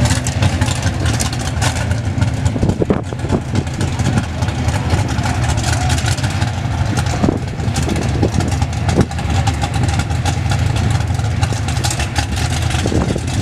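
Engine of a Top Sportsman 1968 Camaro drag car running at a steady, loud idle as the car creeps up toward the starting line, with a few short sharper spikes in the sound.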